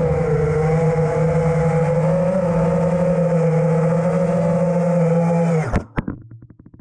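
FPV racing quadcopter's brushless motors (2207.5 size, 2000 kV, on 6S) and props whining at steady throttle, the pitch wavering slightly. Near the end the whine cuts off abruptly with a couple of sharp clacks as the quad sets down and the motors stop.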